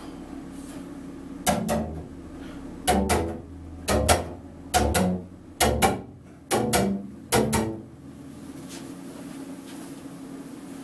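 Double bass playing a rhythmic figure of short, sharp accented notes in pairs, seven pairs about a second apart, then stopping. Faint room tone before and after.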